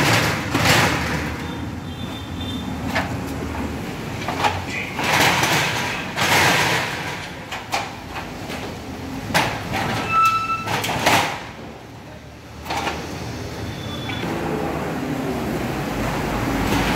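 Corrugated metal rolling shutter and collapsible grille gate rattling and scraping in uneven bursts as they are moved.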